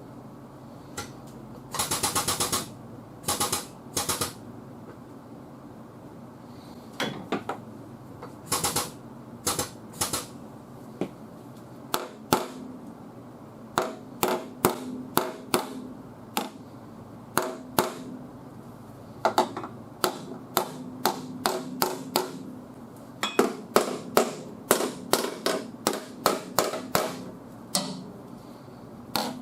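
Hammer striking the sheet-metal quarter panel of a car over and over, in quick runs of several blows with short pauses between, while the panel is held under pull on a frame machine to knock down high spots and straighten the dent.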